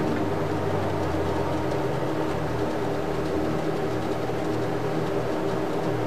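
An old CD-ROM drive spinning and reading the Windows Server 2003 install disc, a steady whirr whose low hum shifts in pitch a few times as the disc speed changes. The drive is noisy and squeaky, a sign that its mechanism is dry and needs greasing.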